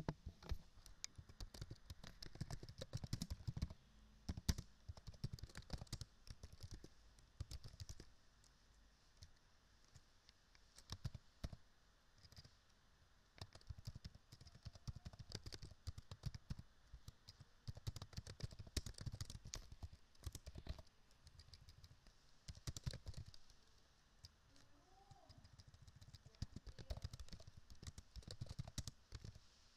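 Faint clicking of computer keyboard keys in runs of typing, with short pauses between runs.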